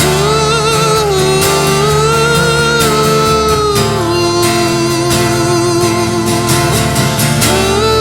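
Worship music: strummed acoustic guitar under a long, held melody line with vibrato that steps slowly between a few sustained notes, without words.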